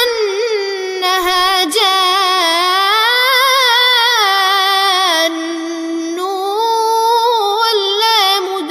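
A young reciter chanting the Quran in the Warsh reading (tajweed), holding long melodic vowels with wavering ornaments. A new, slightly softer phrase begins about five seconds in.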